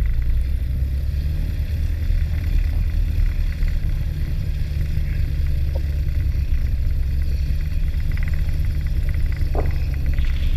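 Motor glider's piston engine running steadily as the aircraft begins to taxi, a low even engine sound heard from inside the cockpit.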